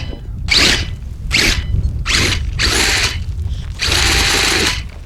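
Radio-controlled scale offroad car's motor and drivetrain whining in about five short throttle bursts, the last one longest, wheels spinning in between, over a steady low rumble.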